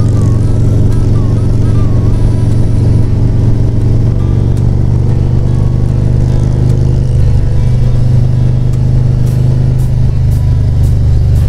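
Harley-Davidson Road Glide's V-twin engine running steadily at cruising speed on the open road, heard from the rider's own bike with road and wind noise mixed in.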